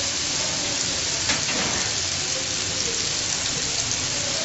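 Marinated chicken skewers sizzling steadily on a hot cast grill pan over high heat, with one light tap about a second in.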